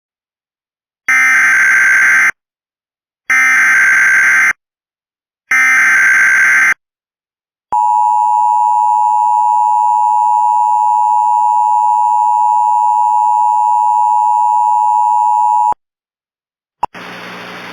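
Emergency Alert System broadcast tones: three buzzy bursts of SAME header data, each just over a second long, then the steady two-tone EAS attention signal for about eight seconds, cut off abruptly. A click and a faint hiss follow near the end as the alert audio begins.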